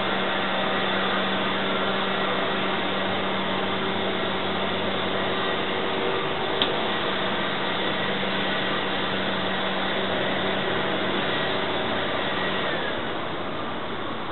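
A motor-driven machine running steadily with a low hum, then winding down near the end as it is switched off. There is one sharp click about halfway through.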